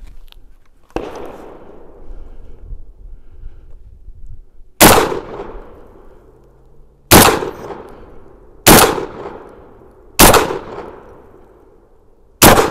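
A Rock Island Armory VR80 semi-automatic 12-gauge shotgun fires five 2¾-inch slugs, one every one and a half to two and a half seconds. Each shot is a sharp blast with a ringing tail. A softer knock comes about a second in, before the first shot.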